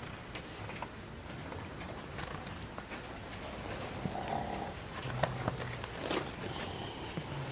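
Fur-farm ambience of caged foxes: scattered clicks and knocks over a faint background, with a brief faint whine about four seconds in and a low hum twice near the end.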